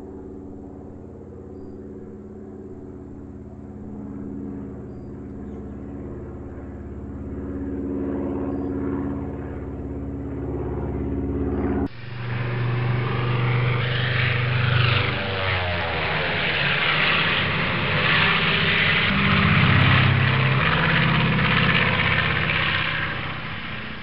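Propeller airplane engine sound effect: a steady drone that grows louder, then about halfway through a sudden switch to a louder, closer engine with a falling pitch a few seconds later as the plane flies by.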